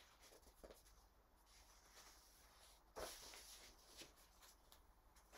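Faint rustling of paper sheets being handled, with a short, louder crinkle about three seconds in and a few light taps.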